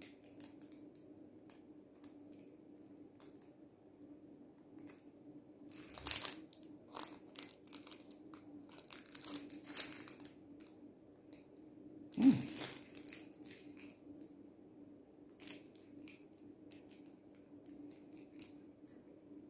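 Small plastic remote control for LED string lights being handled, with scattered small clicks and plastic crinkling and one sharper knock about twelve seconds in, over a faint steady hum.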